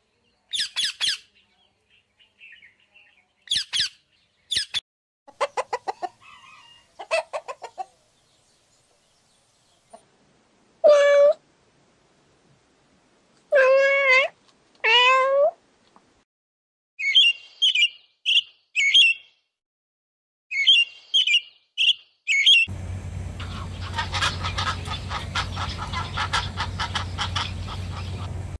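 Budgerigar chirps for the first several seconds, then a domestic cat meowing, once and then twice in quick succession. Two bouts of short, high, evenly repeated bird calls follow, and near the end a steady noisy din with a fast rhythmic pattern.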